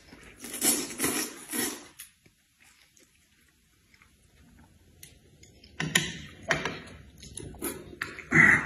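Close mouth sounds of eating: short, noisy slurps and sharp breaths. There are a few about a second in, then quiet, then another run from about six seconds in.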